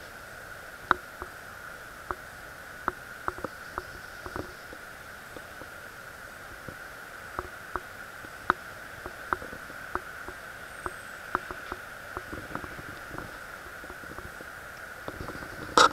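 Handling noise from a handheld compact camera: scattered light clicks and ticks at irregular intervals over a steady high-pitched tone, with a louder cluster of knocks near the end.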